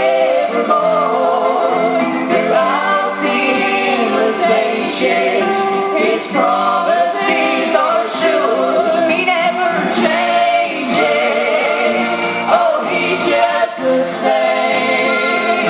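Gospel group singing in harmony with musical accompaniment, the voices carrying a continuous melody.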